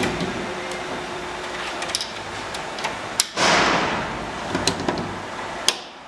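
The cart's awning panels are lowered and locked: a loud sliding scrape lasting about a second, with several sharp metal clicks and knocks as they latch into place.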